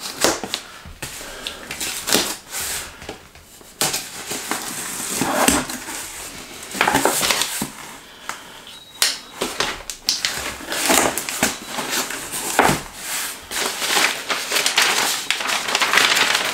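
A cardboard parcel being opened by hand: packing tape slit and torn, flaps pulled open, and paper packing rustled and crumpled as it is lifted out, in irregular crackling bursts.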